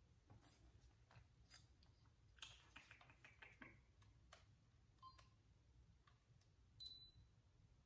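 Near silence with scattered faint clicks from a compact digital camera being handled and its buttons pressed, and a short faint electronic beep about five seconds in and another near the end.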